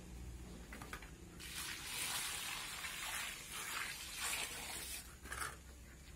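Water poured from a metal bucket into a pool in a heap of sand and cement, splashing in one long pour, then a few shorter splashes near the end: the watering stage of mixing plaster mortar by hand.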